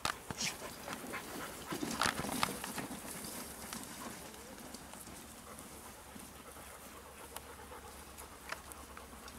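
Dogs panting and moving about on grass, with a few short sharp noises near the start and about two seconds in.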